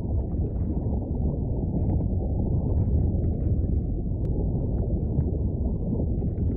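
A deep, steady, muffled rumble, with nothing in it above the low and middle range.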